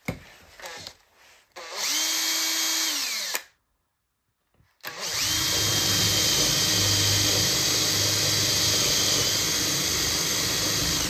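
Cordless drill boring a starting hole into a softwood block. It runs steadily for about two seconds and winds down, then after a pause runs again for about six seconds as the bit cuts deeper, winding down at the end.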